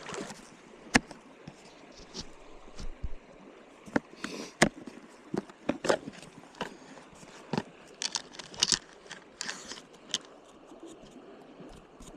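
Irregular sharp clicks and knocks mixed with a few short rustling bursts, over a faint steady stream.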